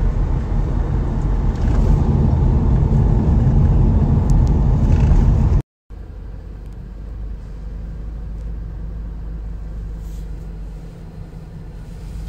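Car interior noise: a steady low rumble of engine and road inside the cabin, which breaks off about halfway through and gives way to a quieter, steady cabin hum.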